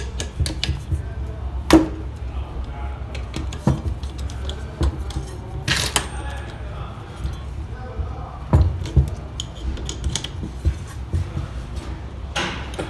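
Scattered metallic clicks and clinks of hand tools and parts being handled while a washing machine wash motor is assembled and tightened, over a steady low hum. One sharper click about six seconds in.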